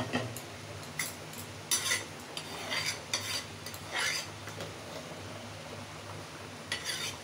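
Dry-roasted dal being scraped and poured out of a metal kadai: irregular scraping and clinking strokes of metal on the pan, with a pause of a couple of seconds near the end, over a steady low hum.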